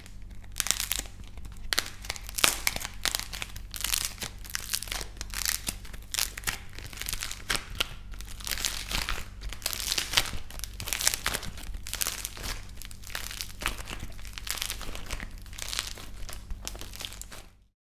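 Hands squeezing and tearing apart a modelling-clay figure whose dried outer crust cracks: a dense run of dry crackles and crunches. It stops abruptly near the end.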